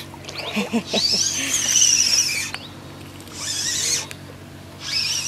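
Spinning reel on a feeder rod being cranked to bring in a hooked fish: a high, wavering whine in stretches of a second or two, with short pauses between.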